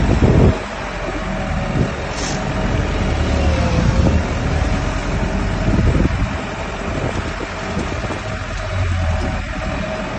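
Self-loading concrete mixer truck's Cummins diesel engine running steadily under load.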